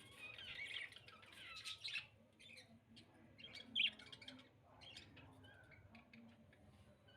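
Budgerigars chattering and chirping, busiest in the first two seconds, with one sharp squawk near four seconds in.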